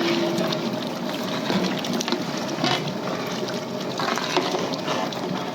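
Big cooking pot of biryani rice and water bubbling on the fire, with a steady watery hiss and scattered small knocks.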